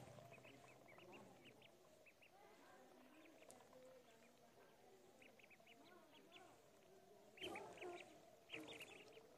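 A flock of ducklings peeping softly while feeding at a dish: many short, high peeps overlapping, with two louder bursts near the end.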